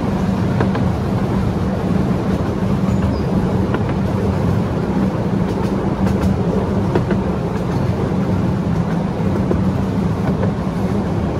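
A 12-inch gauge miniature train running along its track, heard from an open carriage: a steady rumble of wheels on rails with a few faint clicks.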